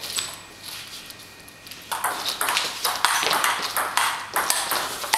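Table tennis rally: the celluloid ball clicking off the paddles and bouncing on the table in a quick back-and-forth. About two seconds in, a louder, denser stretch of noise joins the clicks.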